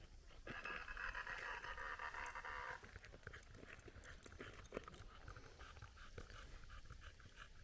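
Animal calls: a dense, buzzy call for about two seconds near the start, then a rapid string of short repeated notes near the end, over scattered faint ticks.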